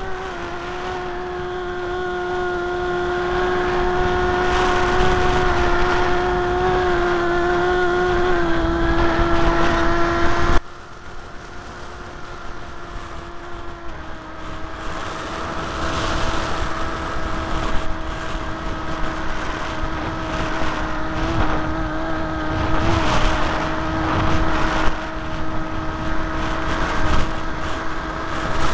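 RC flying wing's motor and propeller running with a steady whine, heard from a car key camera on board the plane, with turbulent wind buffeting the microphone. About ten seconds in the sound drops suddenly quieter, and a few seconds later the whine settles slightly lower in pitch.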